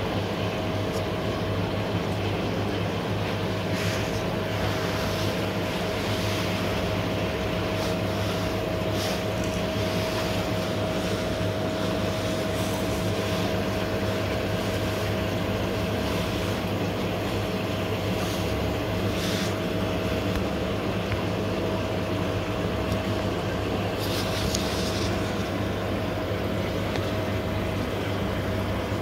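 Steady hum of an aquarium air pump with a constant whine, over the hiss of air bubbling through a sponge filter, with a few faint ticks.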